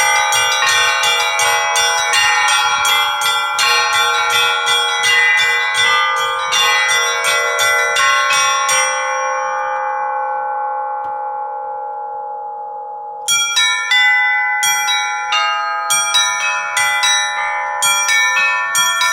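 A set of Orthodox church bells rung by hand by a bell-ringer, several bells struck in a quick, repeating pattern. About nine seconds in the strikes stop and the bells ring on and fade, until the ringing starts again about four seconds later.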